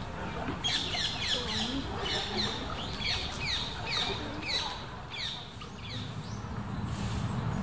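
Bird calls: a run of short, high chirps, each falling in pitch, about two a second for some four seconds, then stopping. A low steady rumble comes up near the end.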